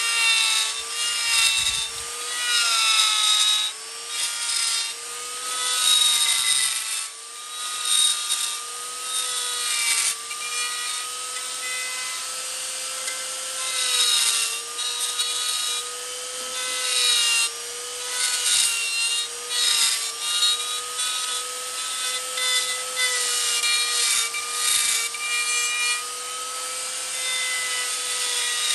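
An electric power tool working wood: a steady motor whine whose pitch dips slightly under load, with loud rasping of the wood that swells and fades every second or two.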